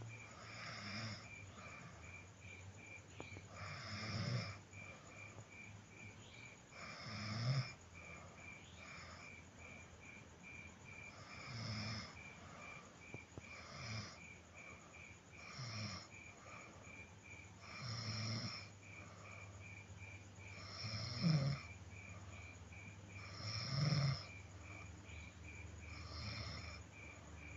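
A person snoring, about ten snores every two to four seconds, each a rough breath that swells and falls away. A steady, rapid, high-pitched chirping pulse runs underneath.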